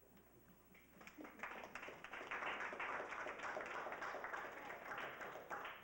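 Small audience applauding, the clapping starting about a second in and going on steadily.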